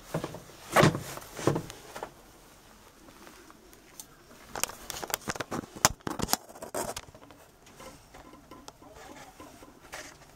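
Irregular clunks and rustling from handling in a boat's cramped bilge, in two clusters: one about a second in and a longer run of knocks from about four and a half to seven seconds in. No engine is running.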